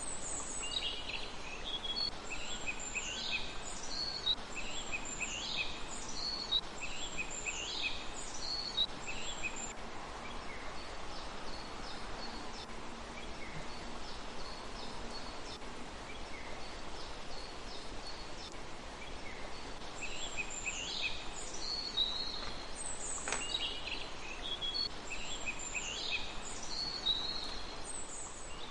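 A songbird singing phrases of quick high notes, each starting with a falling sweep, repeated every second or two. It pauses for about ten seconds midway and then resumes, over a steady background hiss.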